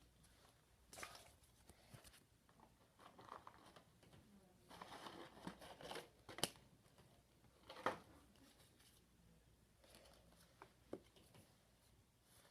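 Faint rustling and light clicks of trading cards being handled and sorted, with a few short sharp taps about six, eight and eleven seconds in.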